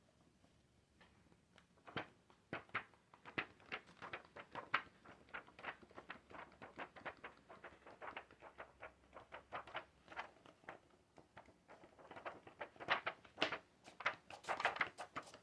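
A long run of light, irregular clicks and taps, a few a second, growing busier and louder near the end.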